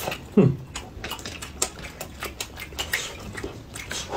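Close-up eating sounds from two people: wet chewing and lip smacks with many small clicks. About half a second in there is a brief hum that falls in pitch.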